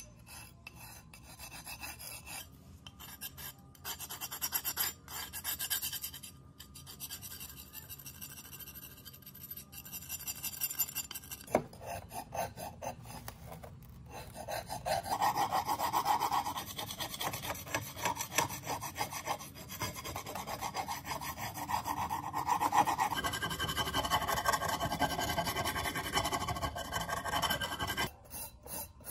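Rust being rasped and scraped off an old steel cleaver blade: a fast, continuous scratching of metal on metal. It grows louder and takes on a ringing edge about halfway through.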